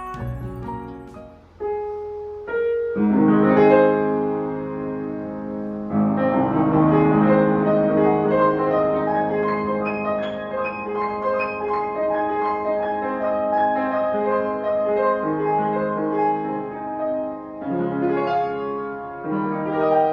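Piano playing a slow melody over held chords, coming in fuller about three seconds in and again about six seconds in.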